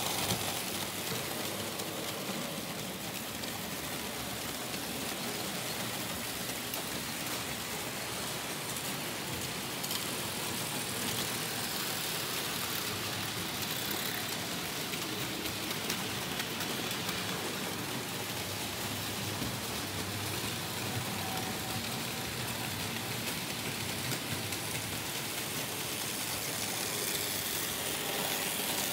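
Märklin H0 model trains running on metal M-track, their wheels rattling steadily over the rails and points.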